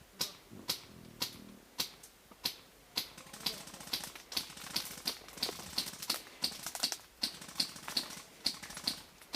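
Footsteps crunching at a steady walking pace, about two steps a second, getting slightly quicker near the end.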